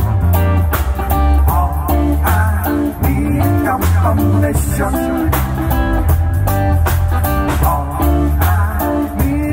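Live rock band playing: electric guitar with bending notes over a drum kit and a steady low bass line.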